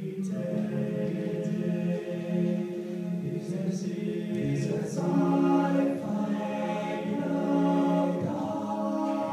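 Men's a cappella group singing in close harmony through microphones, with held chords that change about halfway through and again near the end.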